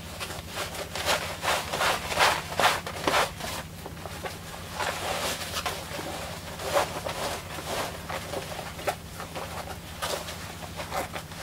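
Cotton half-width obi rustling and swishing in many short brushes as it is pulled and wrapped around the waist by hand, over a steady low hum.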